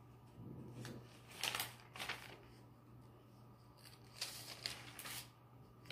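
Bible pages being turned and leafed through by hand: faint, short paper rustles in two clusters, about a second and a half in and again about four to five seconds in.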